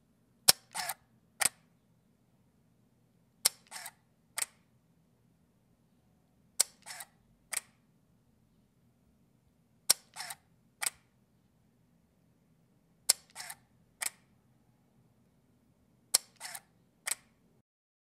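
Canon 5D DSLR shutter firing six times, about every three seconds, with the mirror out of play and no lens mounted. Each release is a sharp click followed by a quick double click and then one more click.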